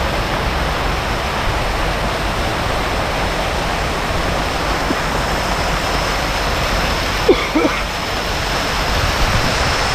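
Many small fountain jets splashing steadily into a pond, a continuous rushing of water. A brief knock sounds about seven seconds in.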